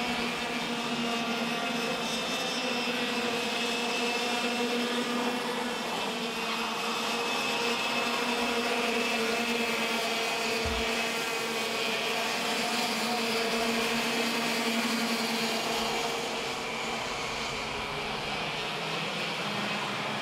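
Several racing karts' two-stroke engines running at high revs together, a steady high-pitched engine whine with several held tones as the pack circulates.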